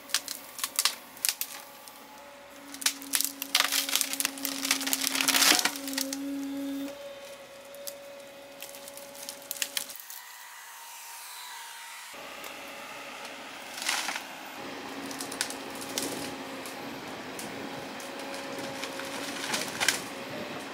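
Excavator-mounted Koala tree shear cutting through tree trunks and branches: repeated sharp cracks and splintering of wood, a dense cluster in the first six seconds and more later on, over the steady hum of the excavator's engine and hydraulics.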